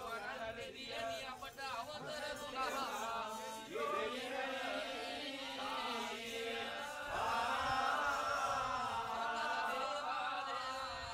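Chanting in the Kandyan Kohomba Kankariya ritual: voices sing a gliding, melismatic chant over a steady low held note. The chant grows louder about seven seconds in.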